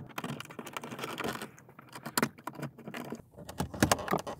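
Plastic trim removal tools prying around a clipped-in VW Bora dashboard air vent: an irregular run of sharp plastic clicks and scrapes as the vent's retaining clips are worked loose.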